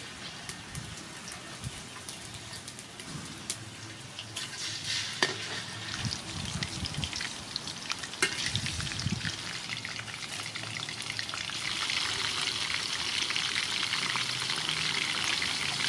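Sea fish pieces sizzling and crackling as they fry in hot soybean oil in a metal wok, with a few sharp clicks along the way. The sizzle grows louder near the end.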